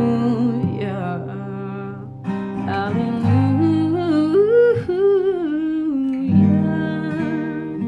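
A voice humming a slow wordless melody over strummed acoustic guitar chords.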